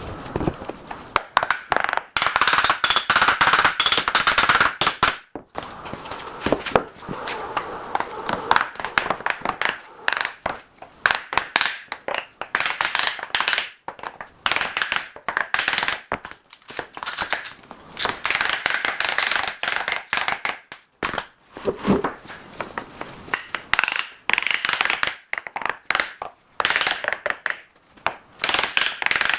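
Hand work on wooden pieces: irregular knocks, clicks and scraping as the wood is handled and worked.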